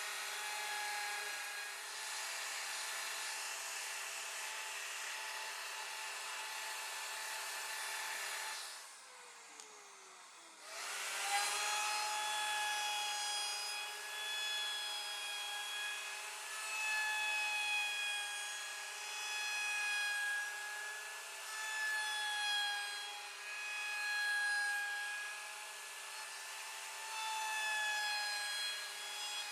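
CNC router spindle whining at a high pitch over a rough hiss as the bit carves MDF. About nine seconds in, the sound drops away for a couple of seconds with a falling tone. The whine then comes back and wavers as the bit cuts.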